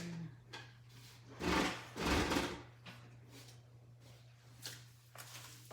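Cardboard and packing material being handled while unboxing: two short sliding, rustling sounds about one and a half and two seconds in, with a few light knocks.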